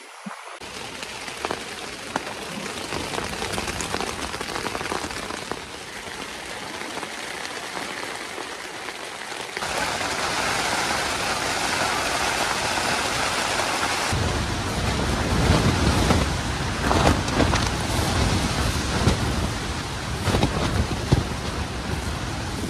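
Storm wind and rain beating on a nylon camping tent, with fine pattering and flapping of the fabric. It gets louder about ten seconds in, and from about fourteen seconds heavy low gusts buffet the tent, rising and falling.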